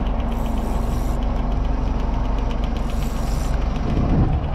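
Boat engine running steadily: a low drone with a fast, even ticking over it.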